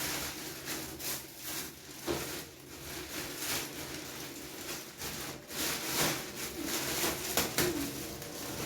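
Polythene packaging bag crinkling and rustling in irregular bursts as it is cut open and handled.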